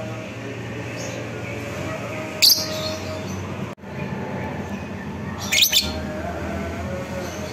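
Fischer's lovebird calling, with two short, shrill, high-pitched squawks about 2.5 seconds and 5.7 seconds in, over steady background noise.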